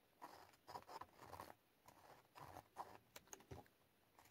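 Faint scratching of a pen tracing letters through a plastic stencil onto paper, in short, irregular strokes.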